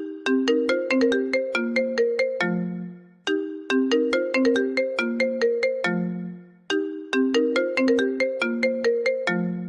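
iPhone ringtone playing on a loop: a quick melody of short struck notes that ends on a held low note, repeating about every three and a half seconds.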